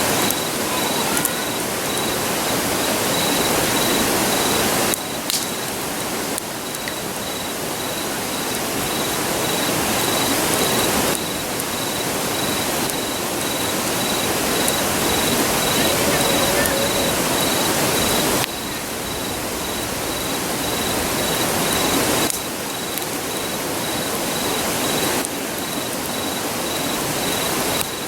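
Steady rushing of a river, with crickets trilling in an even pulsing line and a few sharp pops from a wood campfire.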